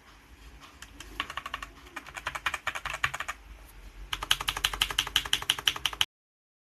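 Prolink GM-6001MS mechanical gaming keyboard being typed on: runs of rapid key clicks that get quicker and louder for the last two seconds, then the sound cuts off suddenly.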